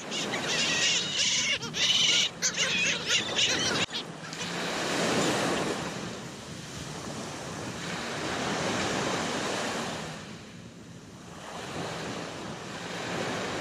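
Ocean surf washing onto a sandy beach, the noise swelling and ebbing as each wave breaks and runs up. For the first four seconds there is a louder, choppy high hiss, ending in a sharp click.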